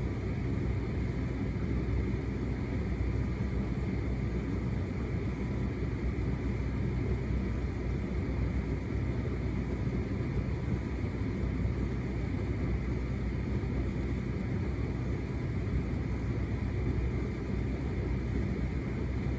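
Hotpoint SUTCD97B6PM tumble dryer running a shirts cycle: a steady low rumble of the motor and fan as the drum tumbles the load.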